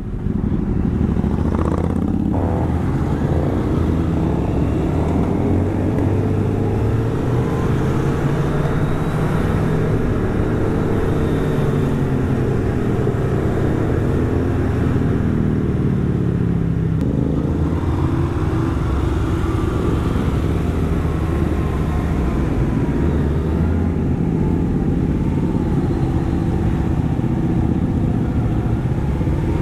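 Motorcycle engine running while riding, heard from the rider's seat, its pitch rising and falling with the throttle.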